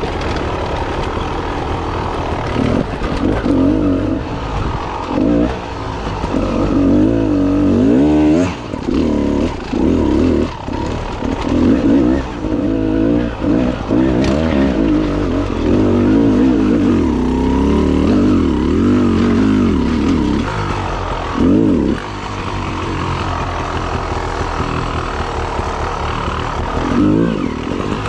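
Dirt bike engine revving up and down as it is ridden on a rough trail, the pitch rising and falling with each twist of the throttle. It drops to a lower, steadier run for the last several seconds.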